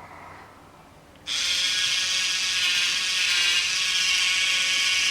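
Toy dental drill from a Play-Doh Doctor Drill 'n Fill set, a steady high whirring buzz that switches on about a second in.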